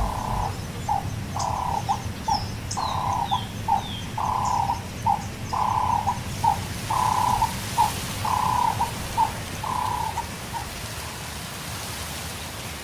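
A bird calling over and over in a rhythmic two-note pattern, a longer note then a short one, stopping near the end. Small birds chirp and give short falling whistles high above it early on, over a low rumble of wind.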